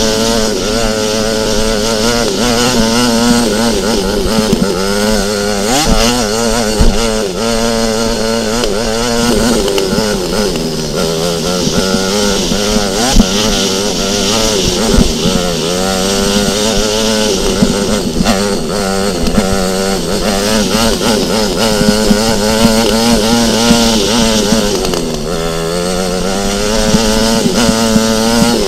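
Motocross bike engine running hard and revving up and down as the throttle is worked along a dirt track. The pitch drops as the engine eases off about ten seconds in and again about twenty-five seconds in, then climbs again.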